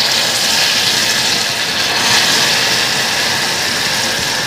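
Water poured into dark caramelized sugar in a hot saucepan, setting off a loud, steady hiss and sizzle as the caramel boils up and steams. The hiss starts suddenly and eases only slightly.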